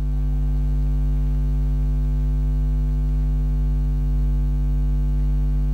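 Steady low electrical mains hum, a buzz made of several fixed tones that never changes in pitch or level.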